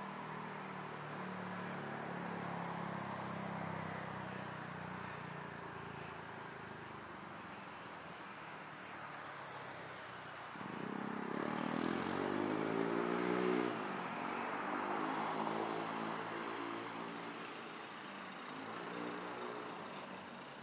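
Street traffic: a vehicle engine runs low and steady, then about ten seconds in an engine pulls away, its pitch rising for a few seconds, the loudest part. Further engine sounds follow over a steady street hiss.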